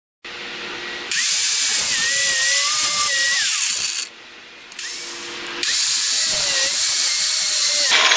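Angle grinder with a cutoff wheel starting up and cutting through a fiberglass fishing rod handle, twice for about three seconds each. The motor whine drops away briefly about four seconds in and rises again before the second cut.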